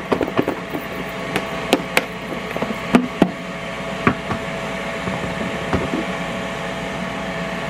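Chicken wings in dry breading shaken in a lidded plastic breader shaker bowl, knocking and rattling for about three seconds, then a few single knocks as the bowl's lid is handled. A steady appliance hum, the air fryer running, sits underneath throughout.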